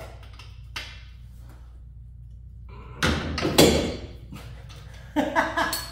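Wrench working at a seized brake caliper bolt on a Subaru: a small click about a second in, then a loud metal clunk and clatter about three seconds in, and more knocking near the end.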